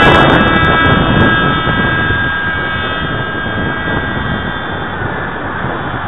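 Electric brushless motor (Turnigy 2632 1500kv) and propeller of a small RC foam jet running at high throttle, a steady whine that fades as the plane climbs away.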